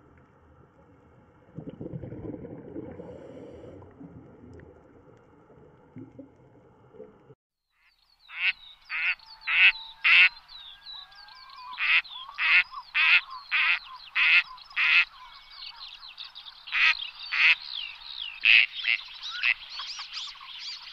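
A faint, low, muffled underwater rumble that cuts off about seven seconds in. A moment later ducks start quacking loudly, in quick series of short calls.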